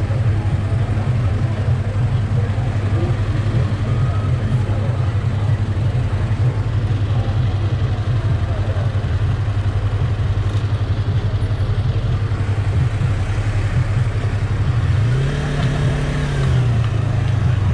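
Motorcycle engine idling steadily in street traffic. About fifteen seconds in it is briefly revved higher, then settles back to idle.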